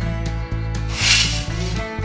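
Background music with a steady low bass beat, over which a small metal trowel scrapes and digs into damp sand, loudest about a second in.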